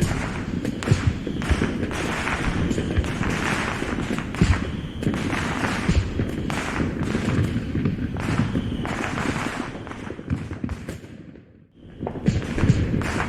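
Dubbed-in fireworks sound effect: a dense run of aerial-shell booms and crackling. It thins out and drops to near quiet briefly near the end, then starts again.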